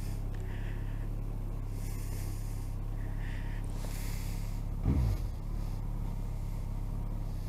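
Motorcycle engine running at a steady low speed as the bike pulls away and leans through a turn, with a short downward sweep in pitch about five seconds in.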